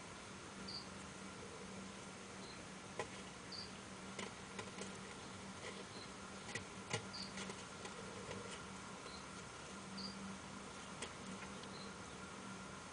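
Short, high-pitched chirps, about one a second, alternating between two slightly different pitches, with a few faint clicks and a low steady hum underneath.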